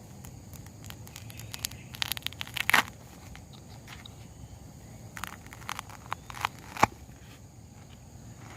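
Handling clicks and scrapes of a foam float being pierced and fitted with wire, in two short clusters, about two seconds in and again about five to seven seconds in, over a faint steady insect drone.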